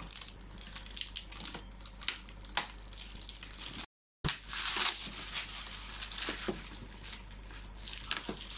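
Clear plastic wrapping crinkling and tearing as it is pulled off a cardboard toy box, in a run of short crackles. The sound drops out briefly about four seconds in.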